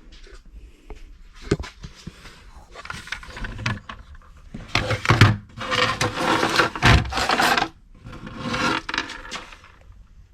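Irregular rubbing and scraping handling noises with a few clicks, loudest in the middle stretch.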